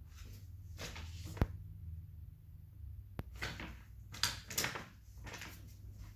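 Flat-pack furniture parts and packaging being handled: scattered rustles and light knocks, with a couple of sharp clicks, about one and a half and three seconds in.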